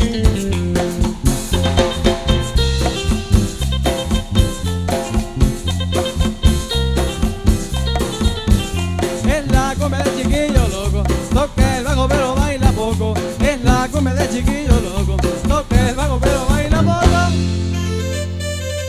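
Cumbia band playing an instrumental passage: a steady bass and drum beat under a melody line, ending on a held chord shortly before the end, after which the beat starts again.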